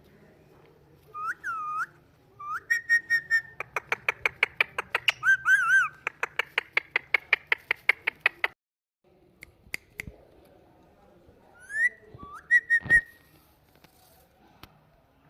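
Indian ringneck parrot whistling: a few short whistled swoops, then a long rapid run of repeated whistle notes at about five a second, and after a pause another rising whistle.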